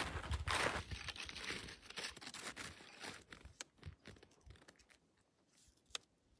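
Footsteps crunching in snow, growing fainter as the walker moves away, then a single sharp click about six seconds in.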